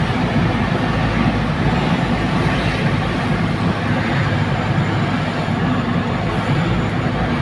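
Truck engine running steadily under way, with road noise, heard from inside the cab.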